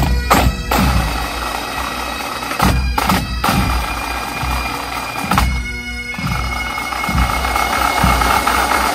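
A massed pipe band of Great Highland bagpipes and drums playing together: the pipes' steady drone sounds under the melody, with regular drum beats. The sound briefly dulls, losing its highs, about six seconds in.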